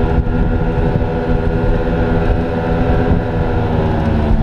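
Twin outboard motors on a Shark Cat running hard at planing speed, a steady drone that shifts slightly in pitch, over a low rush of wake and water.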